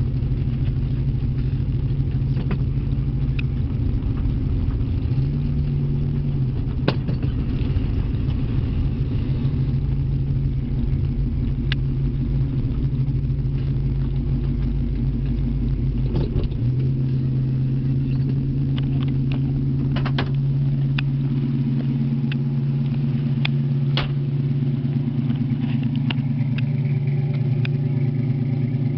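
A 1968 Ford Mustang coupe's engine running steadily while the car is driven, with low road rumble. Partway through, the rumble drops away and the steady engine note carries on, heard close to the exhaust tip. A few sharp clicks stand out.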